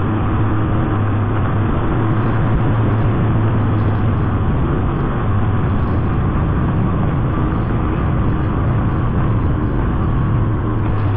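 Yamaha TT-R125 dirt bike's four-stroke single-cylinder engine running at a steady cruise, heard close up from its own handlebars, with wind noise on the microphone. The engine note holds even, with no revving.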